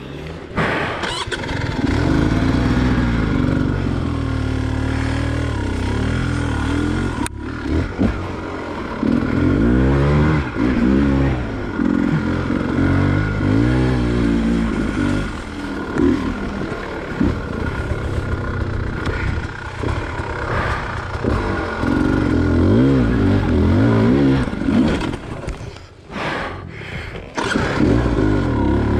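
Enduro dirt bike engine running hard under a rider, its pitch climbing and falling every second or two as the throttle is worked, with brief dips around 7 seconds and 26 seconds in.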